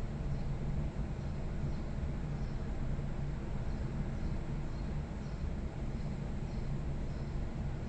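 Steady low rumble with a continuous low hum, unchanging throughout.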